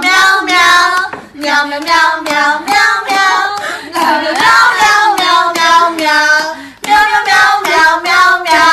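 A high voice singing in a run of long, wavering notes, in three phrases, cut off suddenly at the end.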